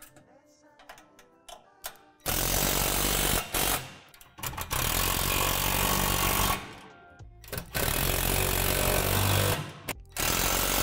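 RIDGID cordless impact driver hammering bolts tight in five bursts of one to two seconds each, starting about two seconds in, with a wrench holding the nut. This is the final tightening of brace hardware that had only been finger-tightened.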